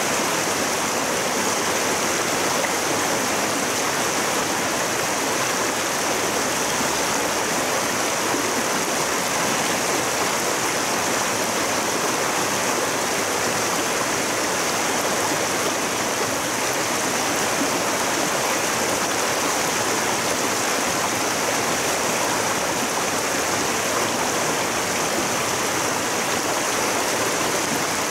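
Small, fast mountain stream rushing steadily over rocks in whitewater, running high for its size.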